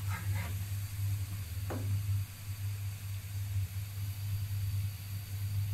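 Metal spatula scraping and knocking against a frying pan of oil-fried bread toast, briefly near the start and once more just under two seconds in, over a steady low hum.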